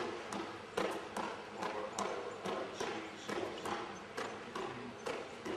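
Hands slapping down on the leather of a pommel horse, in a steady rhythm of about two to three sharp slaps a second, as a gymnast swings circles along it.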